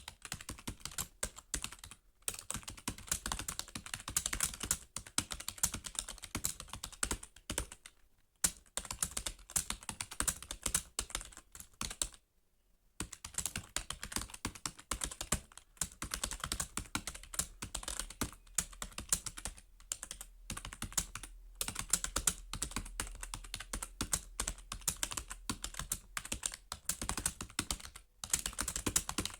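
Fast typing on a computer keyboard: a dense, uneven stream of key clicks, broken by short pauses, the longest about twelve seconds in.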